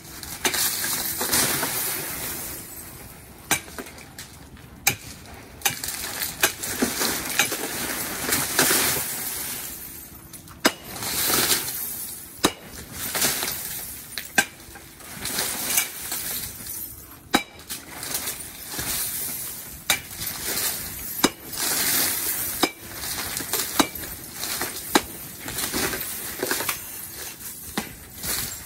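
Baseball bat smashing plate-glass windows, a dozen or so hard strikes at irregular intervals, each one shattering the glass with broken shards clinking and falling after it.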